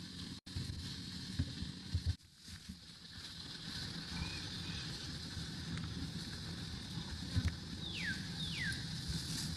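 Outdoor ambience with a steady low rumble and a few soft thumps, briefly cutting out near the start. Near the end come two short chirps, each sliding down in pitch.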